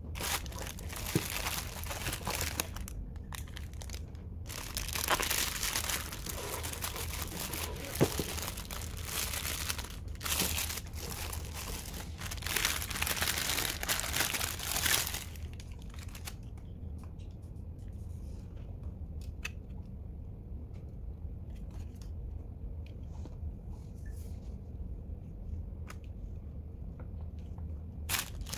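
Clear plastic packaging bags crinkling as sunglasses and their spare lenses are unwrapped by hand, in loud bursts over the first half. After that, quieter handling with light clicks and taps.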